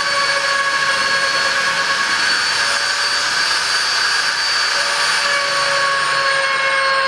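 CNC router spindle running under load, milling a motif into 5 mm aluminium composite panel: a steady loud rushing noise with a high whine, its pitch sagging slightly in the last second or two.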